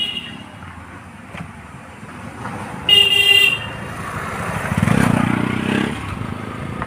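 A motor scooter sounds its horn in one loud honk of about half a second, about three seconds in, then rides past close by, its engine and tyres rising and fading over the next two seconds.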